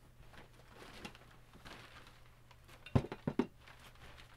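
Crumpled brown kraft-paper packing rustling as it is pulled out of a cardboard box, with a quick run of three or four sharp knocks about three seconds in.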